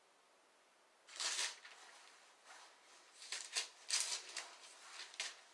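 Paper rustling and crackling in a run of short, irregular bursts starting about a second in, as of book pages being handled and turned.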